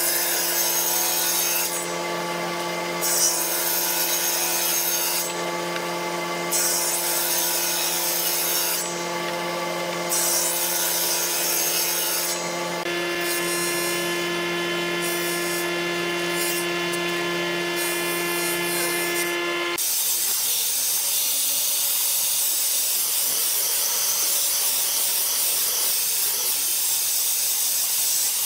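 Electric jointer-planer running with a steady hum, the hiss of its cutterhead coming and going as boards are fed across it in about four passes. About two-thirds of the way through it cuts off, and an angle grinder with a sanding disc takes over, sanding a wooden strip with a steady hiss.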